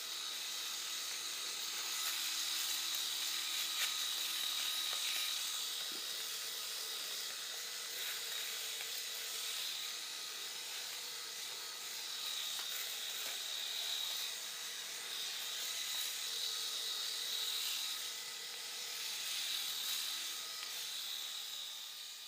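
Cordless electric razor running with a steady buzz, its level swelling and dipping as it is moved over the stubble of a man's face.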